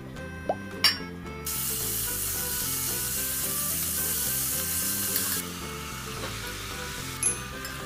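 Pieces of beef sizzling in hot sesame oil in a stainless steel pot, a steady hiss that starts suddenly about a second and a half in and cuts off abruptly about five seconds in. A sharp click comes just before the sizzle and another near the end, over soft background music.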